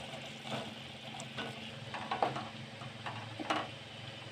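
Green peas tipped into thick masala gravy in a steel kadhai, then stirred with a wooden spatula: soft wet scrapes and a few knocks against the pan, over a low steady hum.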